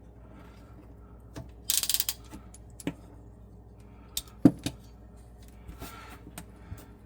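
Handling of a PEX crimping tool and fittings under a sink: a short rattle about two seconds in, then several separate sharp knocks and clicks, the loudest a little past the middle.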